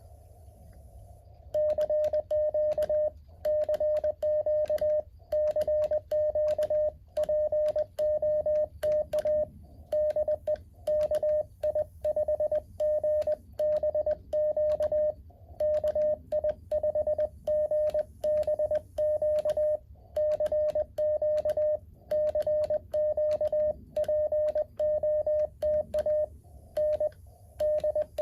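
Morse code sidetone from a Mountain Topper MTR-4B QRP transceiver: a single steady beep keyed into dots and dashes at an even sending pace, starting about a second and a half in. Each keyed element carries a faint click.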